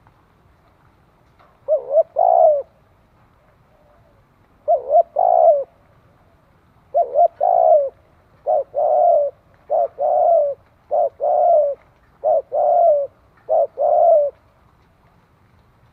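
Spotted dove cooing: eight phrases, each a couple of short notes followed by a longer one. The phrases come closer together after the first three.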